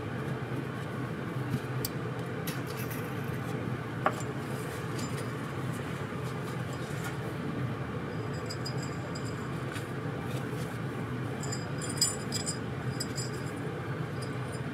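Small metal carburetor parts clicking and clinking as they are handled and fitted together, with a couple of sharper clicks and a cluster of light, ringing clinks near the end, over a steady low hum.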